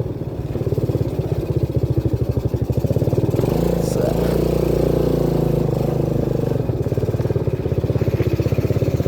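Motorcycle engine running under load on a rough, steep dirt track, its note shifting with the throttle a few seconds in.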